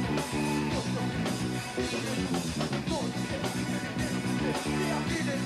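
Rock band playing live, with electric guitars over a steady drum beat.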